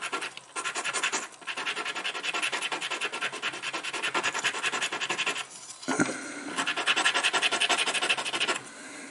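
Hand-sanding a freshly soldered brass lighter-valve part: fast, even back-and-forth scraping strokes that pause briefly twice, with a light knock in the second pause, then stop near the end.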